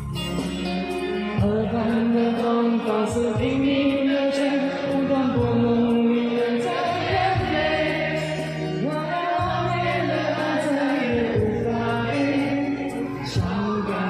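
A male singer sings a slow Mandarin pop ballad live with band accompaniment, heard as a concert recording.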